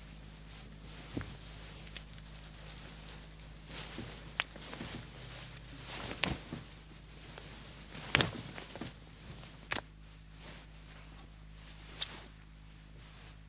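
Clothes being pulled off wardrobe shelves and handled: cloth rustling with scattered sharp clicks and snaps, a few of them much louder, over a low steady hum.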